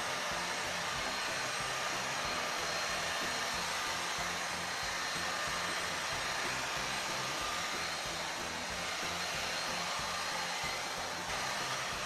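Britânia 700 W upright stick vacuum cleaner running steadily as it is pushed across a hard floor, sucking up scattered grains of rice.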